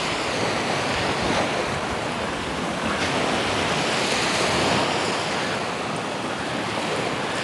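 Sea surf washing onto a sandy beach in steady, gently swelling waves, with wind blowing on the microphone.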